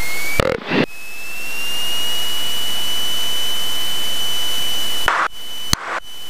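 Cessna 172 engine and propeller coming up to full takeoff power: a steady noise with a whine that rises in pitch over the first couple of seconds and then holds. Brief clicks and cut-outs come about half a second in and again near the end.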